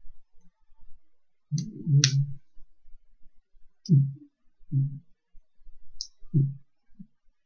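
A man's low voice in a few short, muffled utterances, some opening with a hissing 's' sound, too unclear to make out as words.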